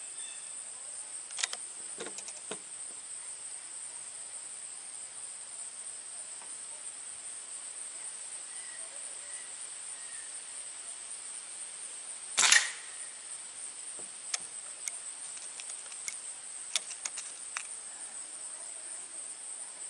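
A single shot from a .177 Diana Trailscout CO2 air rifle about twelve and a half seconds in, one short sharp crack. Steady high chirring of insects runs underneath, with a few faint clicks.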